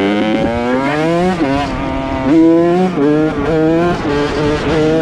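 Small dirt bike engine revving, its pitch climbing and dropping back again and again, about once a second.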